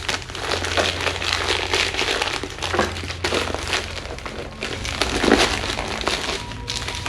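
A bag being handled and opened by hand, crinkling and rustling continuously, over a low steady hum.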